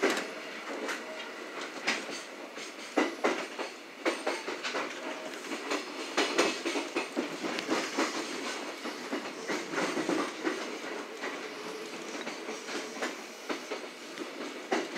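JR West 227-series electric train running, heard from inside its cab: its wheels clatter over the track in irregular sharp clicks over a steady rumble.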